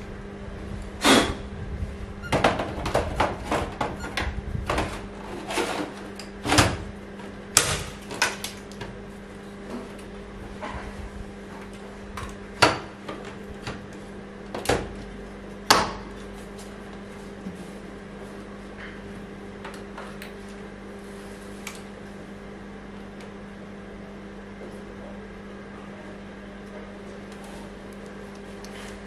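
Clatter and sharp knocks of metal and plastic as a workstation power supply unit is handled and fitted into the metal case of an HP Z800. The knocks come thick over roughly the first sixteen seconds and then die away. A steady low hum runs throughout.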